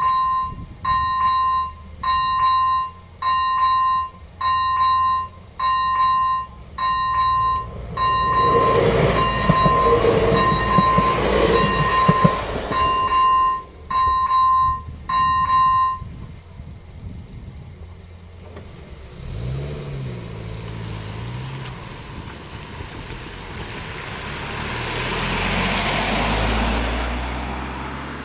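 Electronic ZV-01 warning bell of a Czech level crossing, ringing about once a second. About 8 seconds in, a ČD class 844 RegioShark diesel railcar runs across for about four seconds and is the loudest sound. The bell stops about 16 seconds in, and a car then drives over the crossing, its sound swelling near the end.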